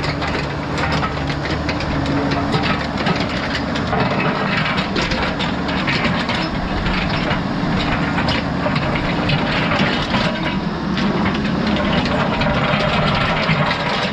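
Heavy equipment engine running steadily, with scattered clanks and scrapes of rip rap stone being moved.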